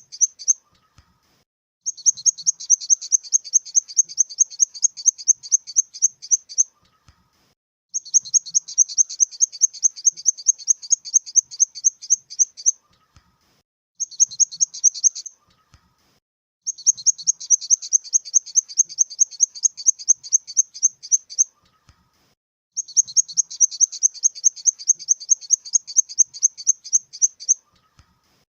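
Grasshopper stridulation sound effect: high-pitched chirps repeating about four or five times a second in trains of several seconds, each train broken off by a pause of about a second.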